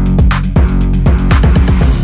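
Electronic background music with a steady drum beat and bass.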